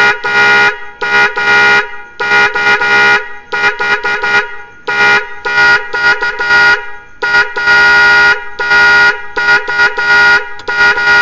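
Maruti Suzuki Eeco's electric horn sounding through a newly fitted horn cutout, honking in a fast pattern of short toots broken by longer blasts of about a second.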